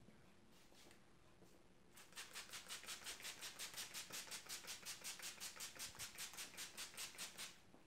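A small hand spray bottle misting hair in quick puffs, about five short hisses a second, starting about two seconds in and stopping near the end.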